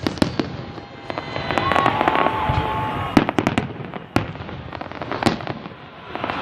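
Fireworks display: aerial shells bursting with several sharp bangs over a steady crackle, and a drawn-out, slightly falling whistle in the first half.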